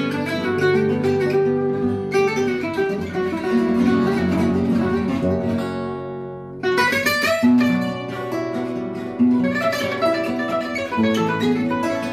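Gypsy-jazz style band playing: acoustic guitars strummed and picked over held accordion notes and double bass. About six seconds in, the music thins out and dips for a moment, then comes back in with a strong strummed chord.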